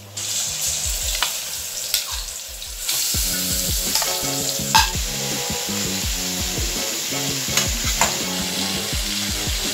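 Marinated prawns sizzling as they are tipped into hot oil in an aluminium kadai and stirred with a spatula. The steady sizzle grows louder about three seconds in, when the prawns hit the oil, with a few sharp clicks on top.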